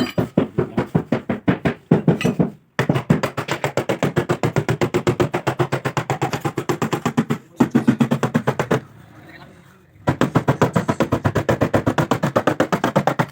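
Background music with a fast, even beat and plucked-string sounds, breaking off briefly twice.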